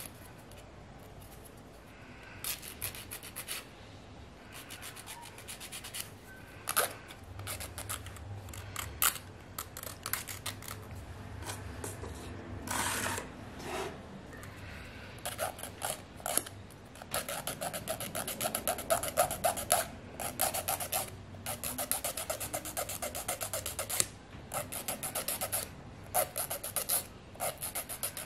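Nail file rasping back and forth over gel full-cover artificial nail tips, shaping them. The quick scraping strokes come in bursts with short pauses between, faster and denser in the second half.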